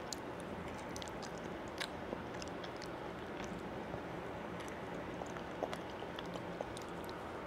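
A toddler chewing food, soft scattered mouth clicks through the chewing.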